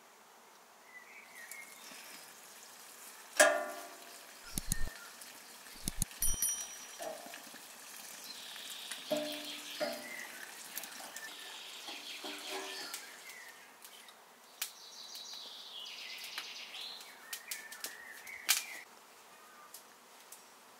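Split firewood knocking against other sticks and the steel barbecue brazier as it is laid on a fire, a string of knocks and clunks with the loudest about three seconds in. A wood fire crackles in the middle stretch, and birds chirp now and then.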